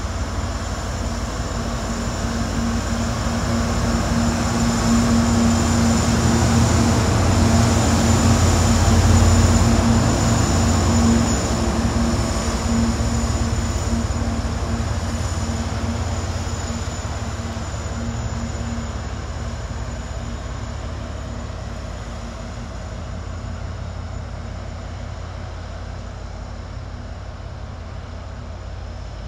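CSX diesel-electric freight locomotives rolling slowly past with a steady low engine drone. The drone grows louder toward its closest point about a third of the way in, then slowly fades as the train moves off.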